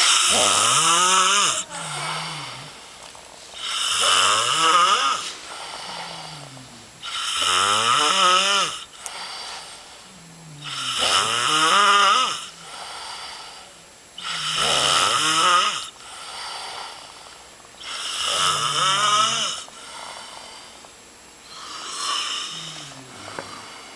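Rhythmic snoring from a sleeper: about seven snores, one every three to four seconds. Each is a long, noisy breath with a pitched rattle that glides up and down, with quieter gaps between.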